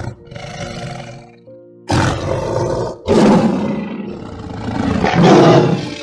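Tiger growling and roaring: a quieter growl in the first second, then loud roars from about two seconds in, the last building to the loudest just before the end. Background music plays underneath.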